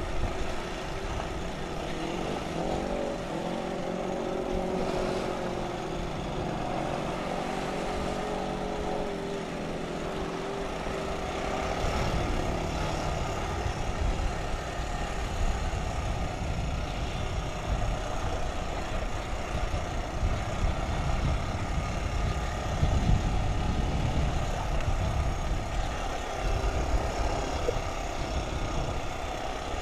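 ATV engine running under way on a dirt trail, its pitch rising and falling with the throttle for the first twelve seconds or so, then a heavier low rumble takes over for the rest.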